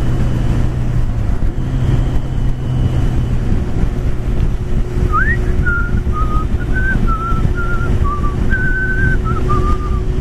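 A person whistling a tune through the steady run of a motorcycle's engine and wind noise at road speed; the whistling starts about halfway in with a quick upward slide, then moves through short held notes up and down and stops just before the end.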